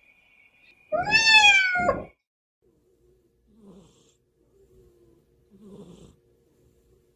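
A domestic cat's loud meow, falling in pitch, about a second in. Then soft snoring from the cat asleep, two faint snores about two seconds apart.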